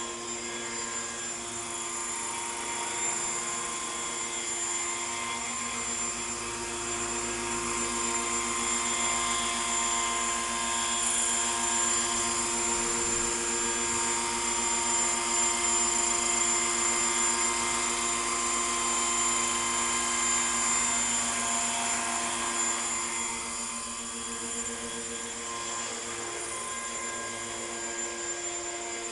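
Hurricane 550 radio-controlled model helicopter in an Agusta A109 scale fuselage, running with a steady whine over rotor noise; it grows louder through the middle and eases off near the end.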